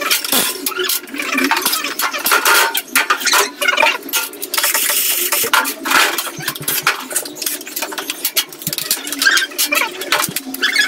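Metal clinks, knocks and rattles of tools and engine parts being handled while a scooter engine is taken apart, with a short run of a cordless drill/driver about five seconds in.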